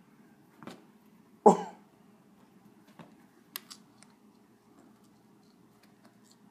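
A person coughs: a faint cough, then a loud one about a second and a half in. A few faint clicks follow.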